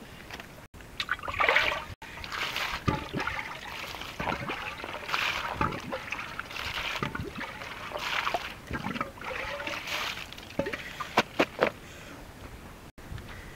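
Wet eels and fish being handled in a wicker basket: slippery squelching and slapping with small splashes of water, irregular throughout, with a few sharp slaps near the end.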